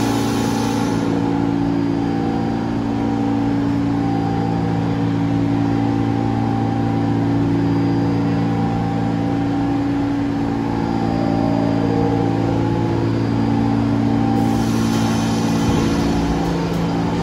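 New York City subway train humming steadily in the station, several held tones over a rushing noise, with a brief rise in hiss near the end.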